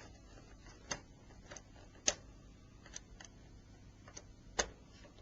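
Faint, irregular small clicks and ticks of a hand tool against a mobile phone's plastic cover and small parts, about seven in all, the sharpest about two seconds in and again near the end.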